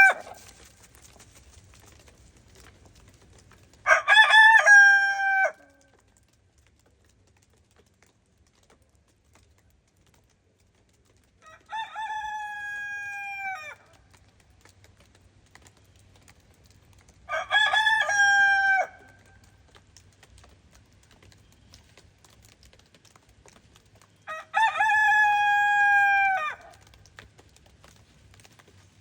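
Araucana rooster crows, four long cock-a-doodle-doos roughly six seconds apart; the first is the loudest and the second is softer.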